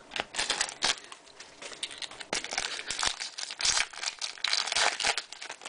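Foil wrapper of a 2011 Topps Chrome football card pack being torn open and crinkled by hand: a run of irregular crackles and rustles.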